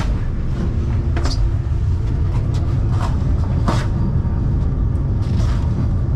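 Low, steady rumble of the Vande Bharat Express electric train running, heard inside the coach vestibule, with a few sharp knocks and rattles scattered through it.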